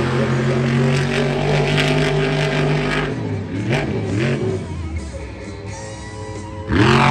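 Monster truck engine held at high revs for about three seconds, then revved up and down in short blips, easing off, and revved hard again near the end.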